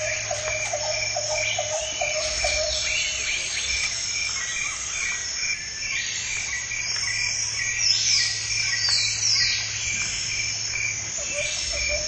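Jungle ambience: insects trilling steadily in a fast pulse, with a low, rapidly repeated call at the start and again near the end, and several falling whistled calls in the middle.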